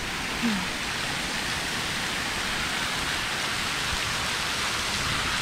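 Water falling and dripping off a rock overhang onto wet rock and shallow pools, a steady splashing patter like heavy rain; the water has seeped through the rock wall from the dammed rivers above. A short low sound that dips in pitch comes about half a second in.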